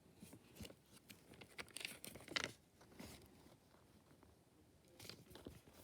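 Faint rustling and crinkling of paper as a page of a picture book is turned: a longer rustle about two seconds in and a shorter one near the end.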